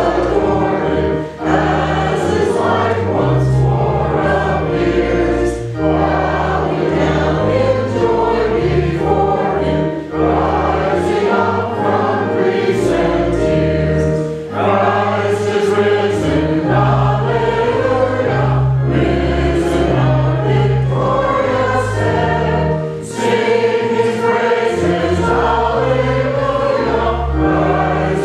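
A congregation singing a hymn with instrumental accompaniment: many voices in phrases with short breaks between lines, over long held bass notes.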